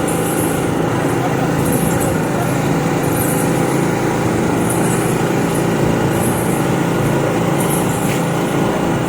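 A vehicle engine running steadily at a constant speed, with a short high hiss pulsing about every second or so over it.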